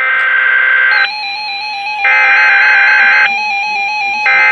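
Weather-radio emergency alert data burst: a harsh, buzzy two-tone digital screech sent in roughly one-second bursts, the second starting about two seconds in, with short gaps between them. From about a second in, a thin electronic tone steps up and down in pitch underneath like a simple melody.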